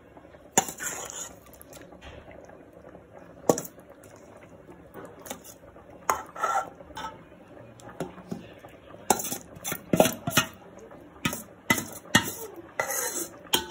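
A metal spoon scraping and clinking against a metal bowl and a metal cooking pot as thick chicken masala is spooned out, with a few sharp clanks spread out and a quick run of knocks in the last few seconds.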